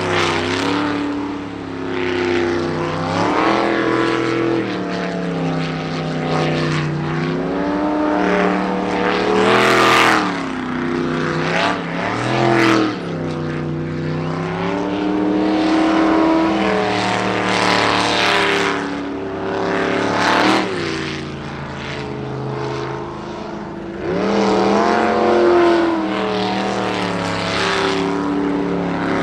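Jet sprint boat engine running hard, its revs rising and falling again and again as the driver gets off and back on the throttle. The loudest peaks come about ten, eighteen and twenty-five seconds in.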